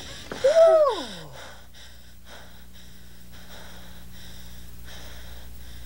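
A short, falling vocal sound about half a second in, then soft breathing over a steady low electrical hum.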